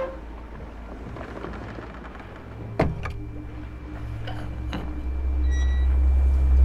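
A sharp click of a glass jar lid about three seconds in, followed by a couple of lighter clicks, while a deep low rumble swells up and becomes the loudest sound near the end.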